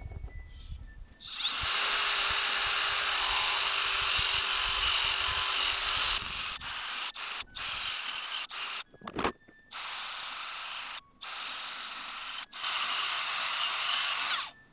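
Power grinder sharpening a brush cutter's shredder blade: a steady motor whine with a grinding hiss, running unbroken for several seconds, then in shorter stretches that stop and restart abruptly.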